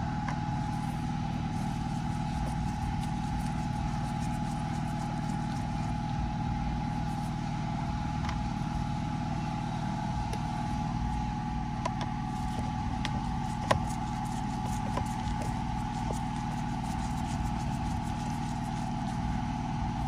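A steady mechanical hum like an engine or machine running, with a few faint clicks and one sharper tick about 14 seconds in.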